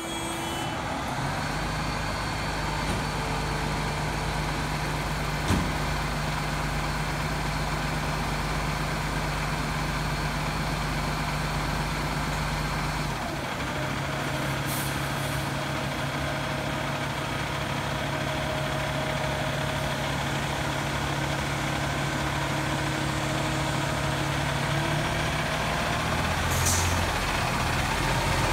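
Fire truck's diesel engine idling steadily, its note changing about halfway through, with short air-brake hisses midway and near the end as the truck starts to pull out, growing a little louder.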